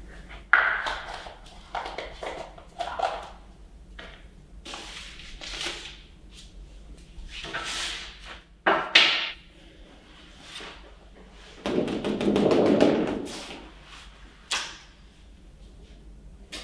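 Large paper sheets rustling and crinkling as they are handled and shifted on a worktable, in irregular short bursts with a few light taps. A longer, fuller rustle comes about twelve seconds in.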